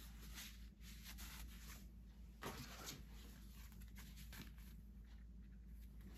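Faint rustling and brushing of cloth being handled, a few soft scrapes with the loudest about two and a half seconds in, over a low steady hum.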